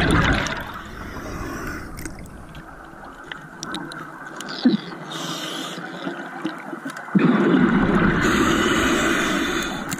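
Scuba regulator exhaust heard underwater: a rush of bubbling at the start, a quieter stretch of water noise, then a long, loud bubbling exhale that starts suddenly about seven seconds in and fades near the end.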